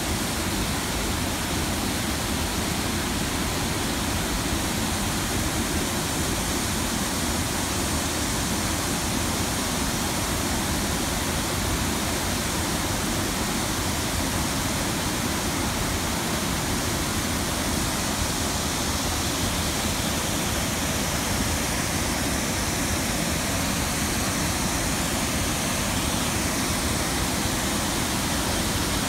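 Water pouring over a low concrete dam spillway into shallow rapids: a steady, unbroken rushing with no rise or fall.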